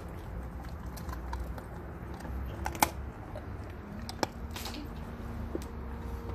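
A dog chewing a raw deer leg: irregular clicks and crunches of teeth on bone and hide, with one sharper crack about three seconds in.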